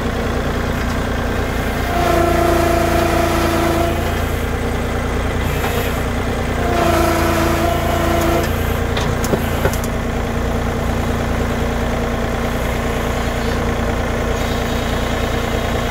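John Deere compact tractor engine running steadily at idle, with a steady whine rising over it twice, about two seconds each time, beginning about two seconds in and again near seven seconds: the loader hydraulics under load as the front-loader bucket is worked.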